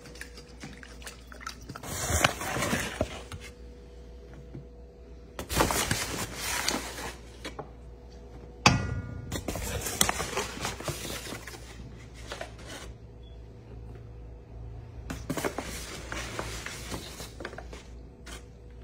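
Kitchen handling sounds as flour is added to batter: a paper flour bag rustling and flour pouring into a stainless steel mixing bowl, with a sharp knock on the metal bowl about halfway through that briefly rings.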